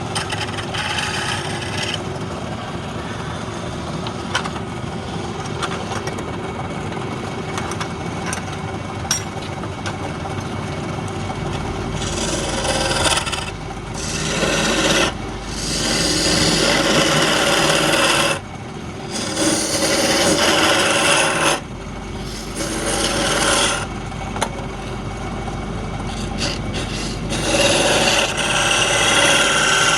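A tool scraping against palm wood spinning on a wood lathe, with the lathe's low hum underneath. From about twelve seconds in the scraping gets louder and comes in passes a few seconds long with short breaks between them.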